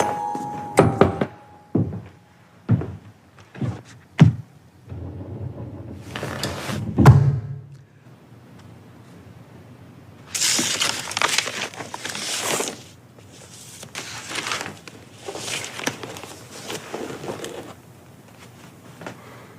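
Drama sound effects: a quick series of sharp knocks and thuds, then a swelling rumble that ends in a heavy thud about seven seconds in, followed by several long bursts of hissing noise.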